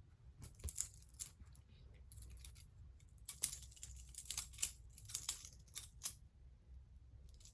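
Butterfly knife being flipped: its metal handles clack and rattle against each other in quick clusters of clicks, about four runs separated by short pauses.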